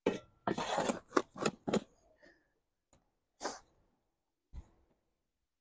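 Steel shovel scooping soil from a pile: a quick run of gritty scraping strokes in the first two seconds and another scrape about three and a half seconds in, then a dull thud a little after four and a half seconds.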